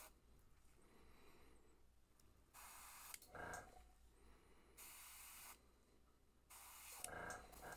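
Gravity-feed airbrush spraying paint in three short bursts of hiss, each about a second long, at low pressure of about 7 psi: the short bursts speckle the lure with tiny flecks of paint.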